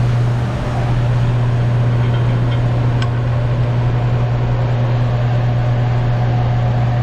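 Steady machine hum with a rushing noise over it, unchanging throughout, with one faint click about three seconds in.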